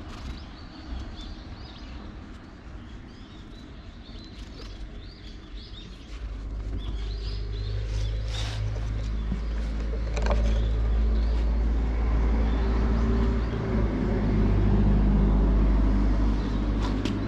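Small birds chirping, then about six seconds in a low, steady rumble with a hum in it starts and grows louder, drowning them out.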